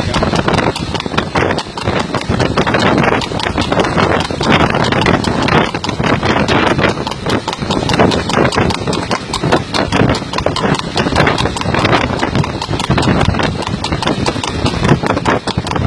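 Rapid hoofbeats of a harness horse trotting fast on asphalt while pulling a light racing cart, over the steady running of motorcycle engines alongside.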